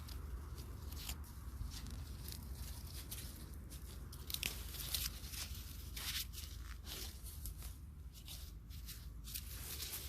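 Irregular crunching and tearing rustles of hands handling soil and plants: a quick, uneven run of short scrapes and snaps, a few louder ones about halfway through.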